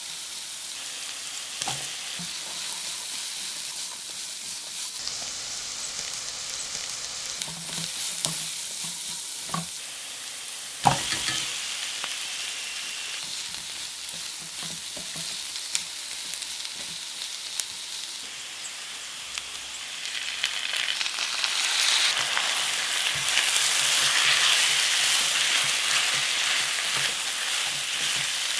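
Chicken wings frying in hot oil in a pan, a steady sizzle with occasional short knocks. There is one sharp knock about 11 seconds in, and the sizzle grows louder from about 20 seconds in.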